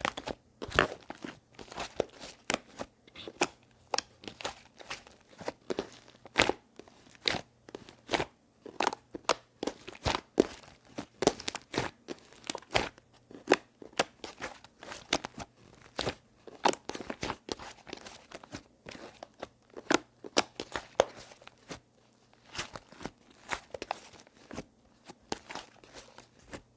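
Clay slime being squeezed and pressed by hand, giving dense, irregular clicking and crackling pops, several a second.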